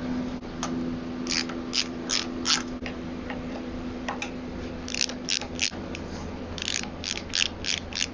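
Ratcheting screwdriver clicking in short runs of a few clicks as screws are backed out of a stand mixer's housing.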